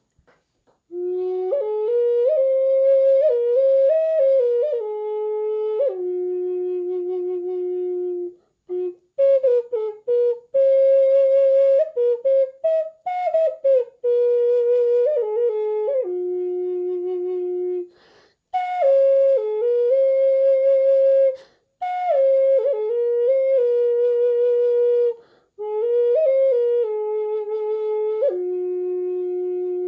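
Handmade Native American style flute (pimak) in F sharp, played dry without effects: a slow melody of held and gliding notes, resting often on the low F sharp, in phrases broken by short breath pauses. The tone is thin and tender.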